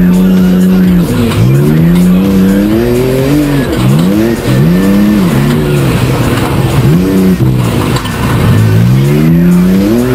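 Off-road race car's engine heard from inside the cockpit, revving hard: the pitch holds high for about a second, then drops sharply and climbs again several times as the car accelerates, shifts and comes off the throttle.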